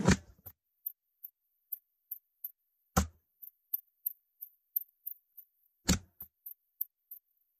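Sharp clicks and snaps from a framer's handheld point driver firing points into a wooden frame to hold a backing board. Three louder snaps come about three seconds apart, with fainter ticks between them.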